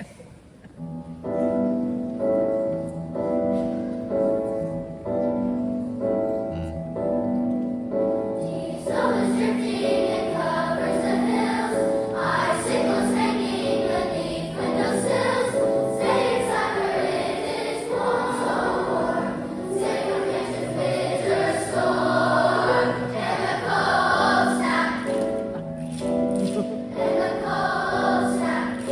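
Choral music: a short instrumental figure repeats, a choir comes in singing over it about eight seconds in, and near the end the figure carries on alone.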